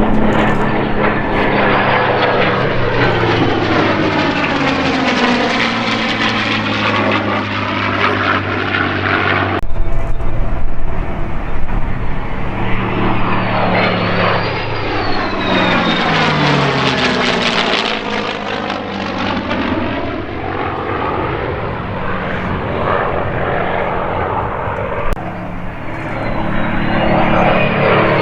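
F-16 fighter jet engine running loud during low passes, its roar sweeping up and down in tone as the jet flies by. The sound jumps abruptly about ten seconds in and again near the end.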